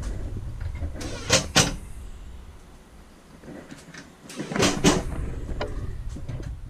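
A few sharp knocks and clatters over a low rumble: two close together about a second and a half in, a cluster at about four and a half seconds, and another at the very end.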